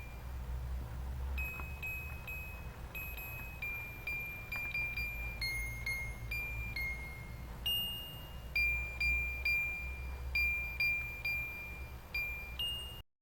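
A 1980 Mr Christmas Lights & Sounds of Christmas Carolites set playing a Christmas tune in thin, beeping single-note tones, one note at a time, over a low electrical hum. The tune cuts off suddenly near the end.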